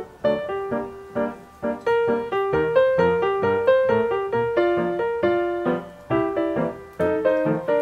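Background piano music: a light melody of single notes, each struck and then fading, one after another with no pause.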